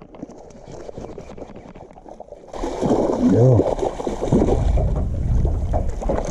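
Water and wind noise at the side of a fishing boat while a hooked bass is fought on a hard-bent rod, starting loudly about two and a half seconds in. A short voiced exclamation comes about a second later.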